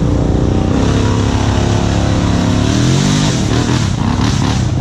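ATV engine revving as the quad churns through a mud hole: the engine note climbs about a second in and drops back around three seconds, then turns rougher and more ragged near the end.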